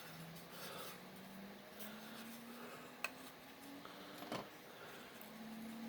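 Light rubbing and handling of 3D-printed plastic parts, with two sharp clicks about three and four seconds in. A faint low hum rises slowly in pitch underneath.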